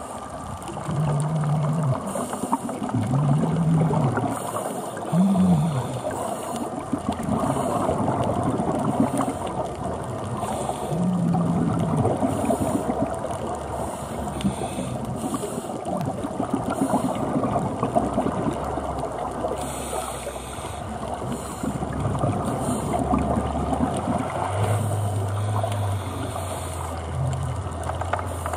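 Underwater recording of a scuba diver breathing on a regulator: exhaled bubbles bubbling and crackling around the microphone, with a few short low hums early on. A low steady drone joins near the end.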